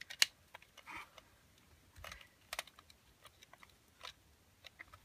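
Irregular sharp clicks and taps of hard plastic as a small plastic toy compact is turned over and pried at in the hands, its lid not yet opening.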